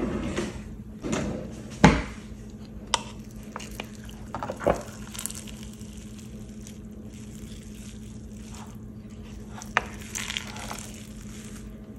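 A wooden rice paddle fluffing freshly cooked sticky rice in a glass baking dish: soft squishing and scraping as the rice is scooped and turned, with a few sharp knocks of the paddle against the glass, the loudest about two seconds in.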